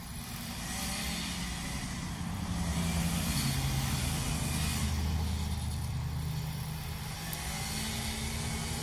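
Gas string trimmer's small engine running, its pitch rising and falling slowly with the throttle as grass along a fence line is cut.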